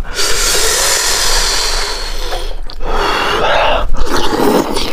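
Close-miked eating sounds of tearing apart and sucking meat from a sheep's head in chili sauce: two long noisy stretches, the second starting after a short break about halfway through.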